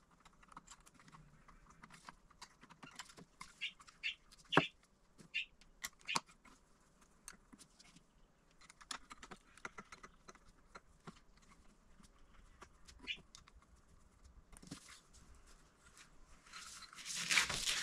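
Small screwdriver and screws clicking and ticking against a metal laser-module cover as the screws are started and nipped up, with small parts handled on a table. A louder rush of handling noise builds near the end.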